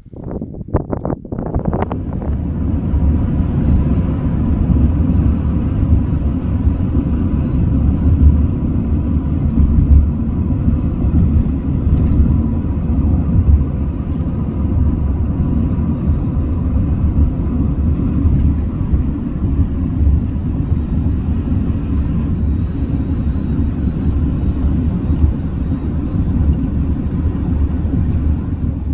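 Steady low rumble of road and engine noise inside a moving car, building up over the first two seconds, with a faint steady whine above it.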